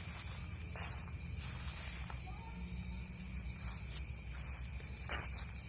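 Outdoor ambience: a steady low rumble with faint steady high tones, broken by a few short soft scuffs about a second in, near two seconds, and again near the end.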